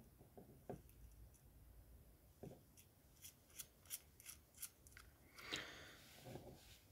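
Faint handling sounds of a 3D-printed plastic taperlock and its small bolts on a metal shaft: a quick run of about six light clicks in the middle, then a soft rubbing near the end.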